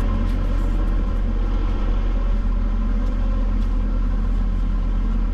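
Excavator's diesel engine running steadily, a loud, even deep drone with no change in pitch.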